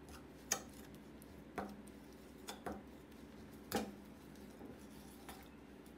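Metal spoon clinking and scraping against a glass bowl while stirring a coconut-sugar, lime juice and fish sauce dressing until the sugar dissolves. About six soft, faint clicks come at uneven intervals.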